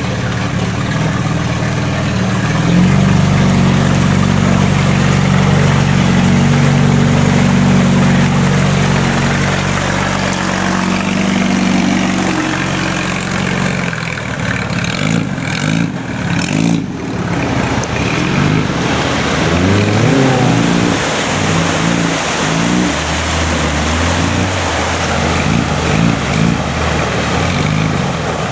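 Off-road 4x4 engine held at high revs under load for about a dozen seconds. Then it is revved up and down repeatedly, with a brief lift off the throttle partway through.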